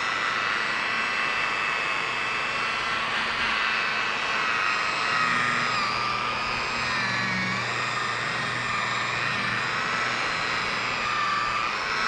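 Electric machine polisher running steadily, its foam pad buffing cutting compound into a sanded plastic headlight lens; a whine of several tones that wavers and sags a little around the middle as the pad drags on the lens, pulling hard, which means the compound is cutting well.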